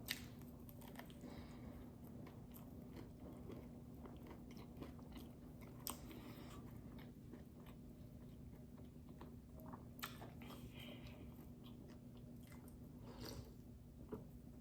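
Faint close-up eating sounds: chewing with a few sharp crunchy bites spread apart, over a steady low hum.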